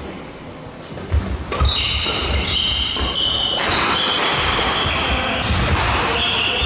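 Doubles badminton rally on an indoor court: shoes squeaking sharply and often on the court floor, with sharp racket hits on the shuttlecock. The squeaks start about one and a half seconds in and come thick and fast from then on.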